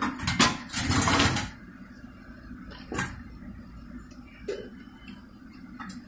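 Stainless-steel dishwasher cover panel being handled: a second and a half of metallic rattling and scraping, then a single knock about three seconds in.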